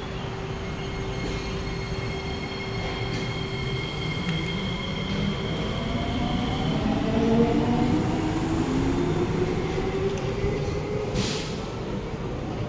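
Kawasaki–CRRC Sifang C151B metro train pulling out of the station and accelerating past: a whine from its traction motors rises in pitch, loudest about midway, then eases as the train draws away. A short hiss comes near the end.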